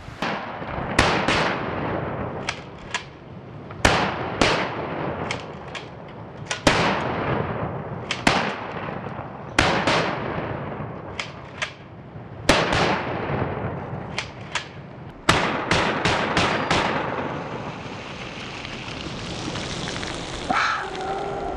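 About two dozen rifle and shotgun shots from a 7.62x39mm SKS and a 12-gauge Remington 870 pump shotgun, fired at an uneven pace, each shot trailing off in a long echo. A quick string of about six shots comes a little past two-thirds in. After the shooting stops, the steady rush of the river remains.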